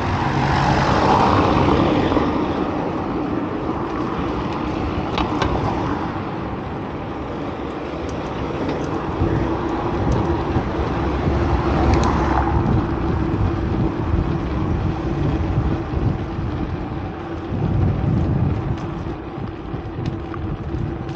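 Road traffic noise: a steady wash of cars, swelling as a vehicle passes about a second in and again about twelve seconds in.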